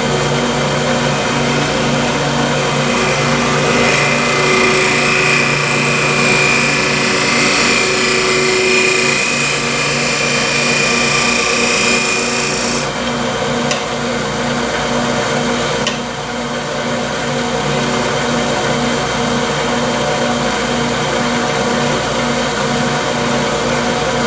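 Wood lathe running with a steady motor hum while a turning tool cuts the spinning wooden workpiece, giving a scraping hiss. The cutting stops abruptly about halfway through, and the lathe keeps running on its own.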